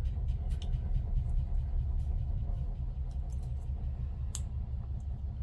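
Steady low background hum with faint light clicks and taps from small model parts being handled, and one sharper click about four seconds in.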